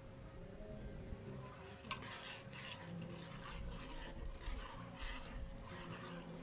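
Stirring in a stainless steel saucepan: a utensil scraping round the pot about twice a second, keeping a sugary panna cotta cream with gelatin moving over the heat so it doesn't catch on the bottom. A sharp click about two seconds in comes just before the strokes begin.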